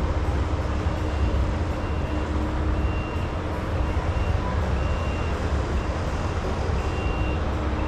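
Steady low rumble and constant hum of the Sky Tower ride's cabin machinery, with a faint broken high tone coming and going.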